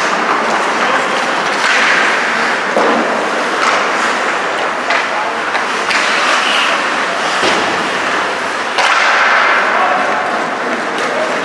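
Ice hockey play: skate blades scraping and carving the ice, with several sharp clacks of sticks and puck, and players' voices.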